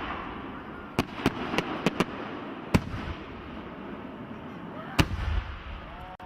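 Fireworks exploding: a run of sharp bangs close together over a steady crackle, with one loud bang about five seconds in.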